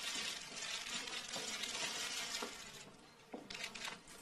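Steady hiss and crackle from the original sound track of old news footage, with scattered faint clicks; it dips quieter about three seconds in.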